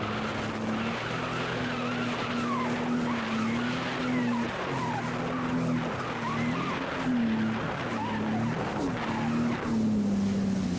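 Sea-Doo GTI 155 jet ski running under way, its engine note wavering up and down with the throttle over the rush of wind and spray. Near the end the engine note falls as the ski slows.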